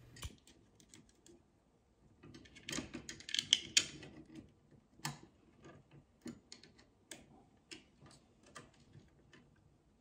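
Stiff copper house wires and a plastic wall outlet being handled as the wires are bent and pushed into the outlet's back: a cluster of clicks and scrapes about two to four seconds in, then light scattered clicks roughly every half second.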